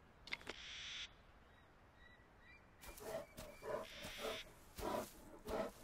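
Grizzly bear's short huffing grunts. There is one breathy huff about half a second in, then a run of grunts about two a second through the second half.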